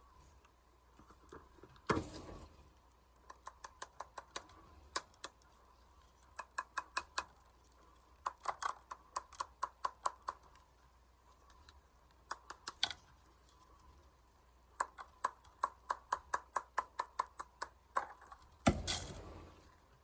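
Cardboard casing of an aerial firework shell being worked open by hand: runs of quick small clicks and snips, about five a second, in several bursts. Two louder dull knocks, about two seconds in and near the end.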